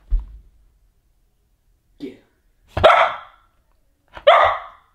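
A curly-coated dog barking twice, about three and four seconds in, with a shorter, softer yip just before: playful barks given in a play bow.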